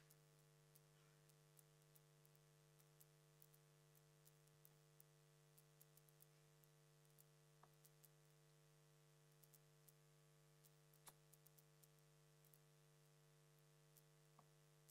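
Near silence: a steady low electrical hum with faint scattered clicks.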